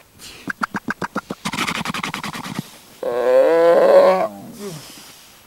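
Weddell seal mother and pup calling to each other: a quick run of about eight clicking pulses, a second of rasping, then a loud wavering call that falls away at the end.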